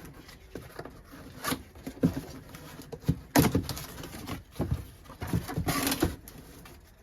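Cardboard box and packaging being handled and opened by hand: irregular knocks and taps, with a longer burst of rustling near the end.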